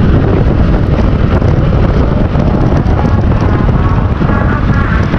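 Heavy wind buffeting on the microphone over the engine and road noise of a Honda ADV150 scooter cruising at about 50 km/h. A faint higher whine comes in near the end.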